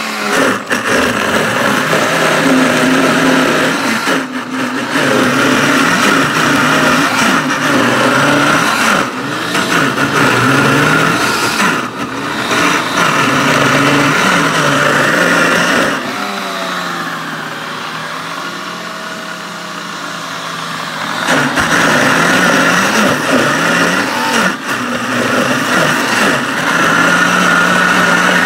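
Ninja Chef high-speed blender running its ice-cream program, blending ice, vanilla creamer and milk. The motor's pitch rises and falls in waves about every two seconds. Past the middle it drops to a lower, quieter speed for about five seconds, then picks back up.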